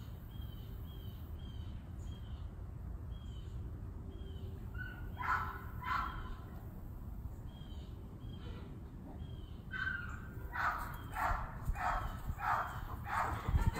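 Animal calls: two loud calls about five seconds in, then a run of about six evenly spaced calls about half a second apart near the end, over steady low background noise. Faint short high chirps repeat about twice a second in the first few seconds.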